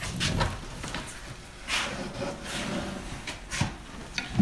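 A pencil scratching along a wooden edge in a few short strokes as an outline is traced, with light knocks of handling.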